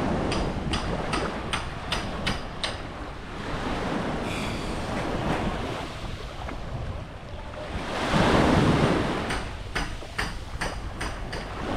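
Waves washing up on a beach, swelling and ebbing and loudest about eight seconds in, with wind on the microphone. Two runs of quick sharp clicks, about two or three a second, come near the start and again near the end.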